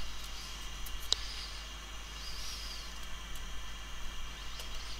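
Faint handling noise from gloved fingers pressing parts into an opened iPhone 4S, with one sharp small click about a second in, over a steady hiss and low hum.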